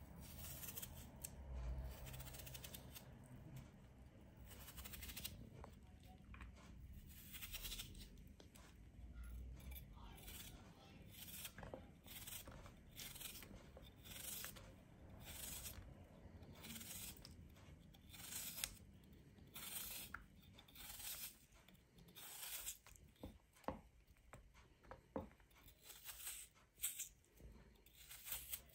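Kitchen knife slicing through a peeled raw potato held in the hand, a faint crisp cut every second or two, coming faster in the second half.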